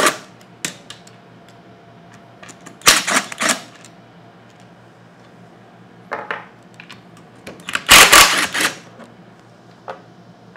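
A cordless power driver with a 9/16 socket on an extension spinning out the bolts that hold a pool pump motor to its seal plate, in several short, loud bursts. Small metallic clicks come between the bursts as the loosened steel bolts are handled.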